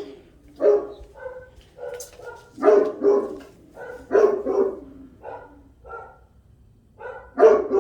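Dog barking on and off in irregular bouts of a few barks each, with fainter barks in between.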